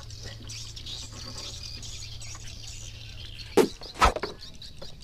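Steady low hum of the boat's engine under high, continuous chirping of birds. The hum stops about three and a half seconds in, and two sharp knocks follow about half a second apart.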